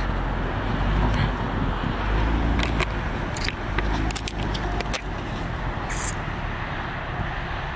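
Mercedes-Benz C300 sedan pulling away slowly across a snowy lot, a steady low engine and tyre rumble that eases off after the first few seconds, with a few light clicks in the middle.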